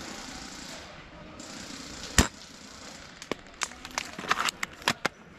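A VSR spring bolt-action airsoft sniper rifle fires once with a single sharp, loud crack about two seconds in, followed by a string of lighter clicks and knocks as the rifle is handled.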